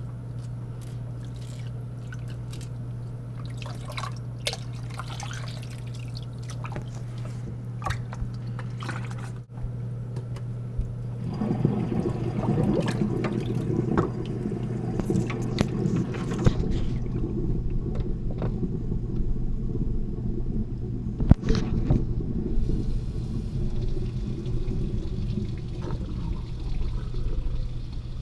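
Water splashing and dripping in a stainless steel kitchen sink over a steady low hum. From about 11 seconds in, tap water runs from the faucet into the sink with a louder, steady rush.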